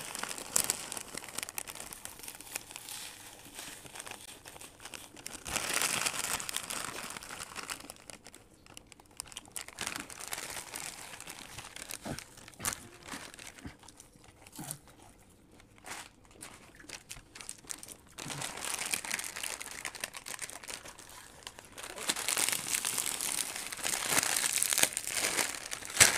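Foil chip packets crinkling and rustling as hands dig snacks out of them, with some crunching of chips being eaten. The rustling comes in spells, loudest about six seconds in and again over the last eight seconds or so, quieter in between.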